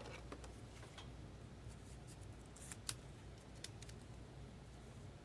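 Faint, scattered clicks and light handling noises from trading card packs and cards being opened and sorted, with a sharper click about three seconds in, over a low steady hum.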